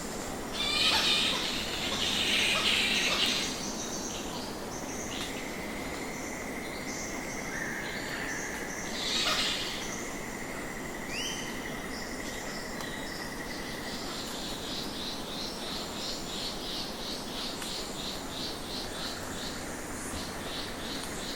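Flying foxes calling from trees in harsh screeching bursts, loudest about a second in, around two to three seconds and again near nine seconds. Insects keep up a steady high trill and then an even rhythmic chirping through the rest of the evening ambience.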